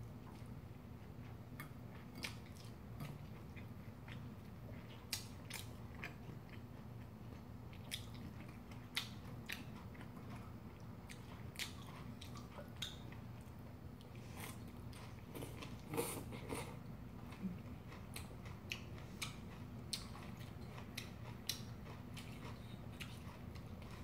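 Close-up chewing and mouth sounds of a person eating spaghetti with whelks and green-onion kimchi. There are many irregular sharp clicks and smacks, loudest about two-thirds of the way through, over a steady low hum.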